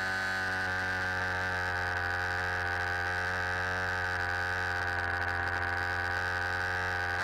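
HPI Baja 5B's petrol two-stroke engine running at steady revs, a constant buzzing drone.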